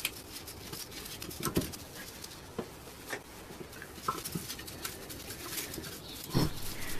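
Quiet room tone with scattered faint clicks and rustles, and a slightly louder soft rush about six seconds in.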